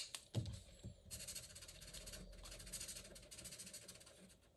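A sharp click, then a fibre-tipped Caran d'Ache Fibralo pen scrubbing back and forth on paper for about three seconds as a colour swatch is filled in: a faint, steady, scratchy hiss.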